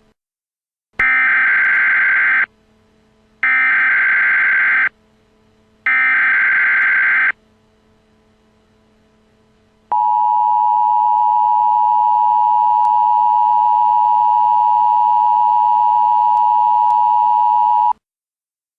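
Emergency Alert System signal opening a Civil Danger Warning: three short screeching SAME header data bursts about a second apart, then the steady two-tone EAS attention signal (853 and 960 Hz) held for about eight seconds before it cuts off.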